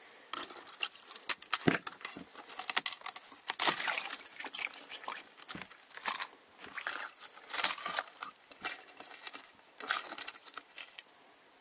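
A quarter-inch sheet of ice frozen in a pot being cracked and broken up by hand, giving irregular crunches and crackles.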